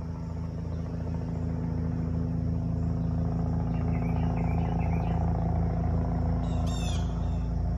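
Helicopter flying, its rotor beating in a steady low rhythm that grows louder over the first few seconds. A few short high chirps come near the end.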